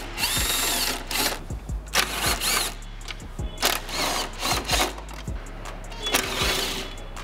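Cordless power driver spinning a 10mm socket on a long extension in several short bursts of motor whine, backing out headlight mounting bolts. Background music with a steady beat plays throughout.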